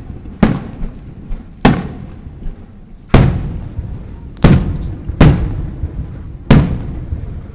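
Fireworks shells bursting overhead: six loud booms over about seven seconds, each trailing off in a fading echo, with fainter pops in between.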